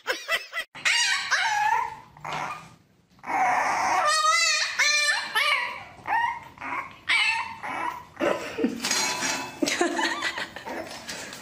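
Dogs whining and yipping in a run of high, wavering calls, with a short pause about three seconds in.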